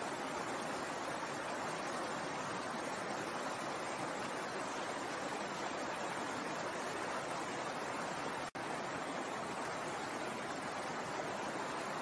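Shallow rocky stream running over stones: a steady rush and babble of water, which cuts out for a split second about eight and a half seconds in.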